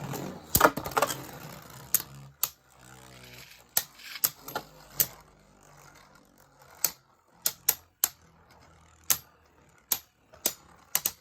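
Two Beyblade spinning tops battling in a plastic stadium: a whirring spin hum that fades over the first few seconds, and irregular sharp clicks as the plastic tops strike each other and the stadium walls.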